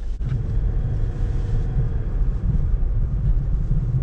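Steady low rumble of a Nissan sedan's engine and tyres on the road, heard from inside the cabin while driving.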